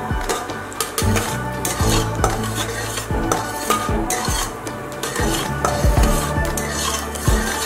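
Spatula stirring and scraping in a stainless-steel kadai, clinking against the metal many times, while dry red chillies and nigella seeds sizzle in hot mustard oil as the tempering (phoron) fries.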